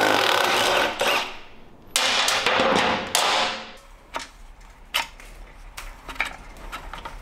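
Front axle nut and bolt of a mini bike being loosened with wrenches: two harsh bursts of tool noise about two seconds apart, then scattered light metal clinks and taps.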